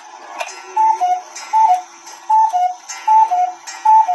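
E. Schmeckenbecher spinning wheel cuckoo clock calling cuckoo over and over from its bellows and pipes. Each call is a higher note falling to a lower one, with a puff of bellows air, about one call every 0.8 s, starting just under a second in after a click.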